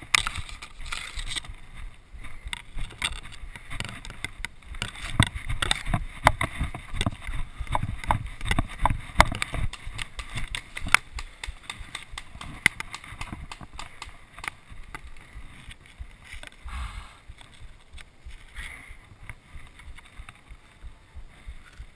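Footsteps on dry leaves and grass with rustling and knocking from a body-worn camera as the wearer moves about: a dense run of irregular thumps and clicks that thins out in the last third.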